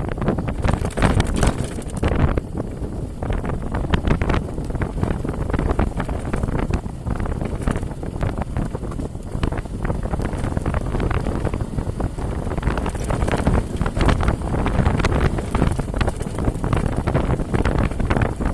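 Heavy wind buffeting on the microphone of a vehicle riding off-road, with frequent short knocks and rattles from the rough ground.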